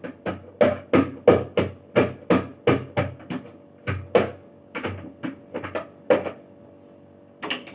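Kitchen ingredients for jamu (ginger, kencur and shallots) being pounded and crushed, about three strikes a second. The strikes slow and become sparser after a few seconds, with two last ones near the end.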